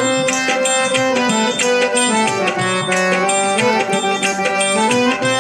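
Instrumental interlude of a Hindi devotional song: sustained melodic lines played over a steady percussion beat.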